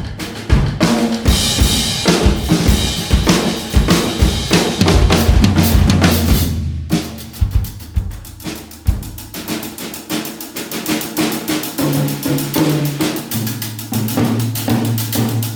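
Nagano Work Series 100% birch drum kit played in a continuous groove of bass drum and snare hits, the low drums ringing on with sustained notes between strokes.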